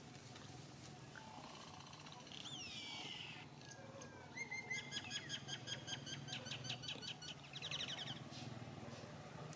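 High-pitched animal calls: two whistled glides about two to three seconds in, then a rapid run of chirps from about four to seven seconds and a shorter run near the end, over a low steady hum.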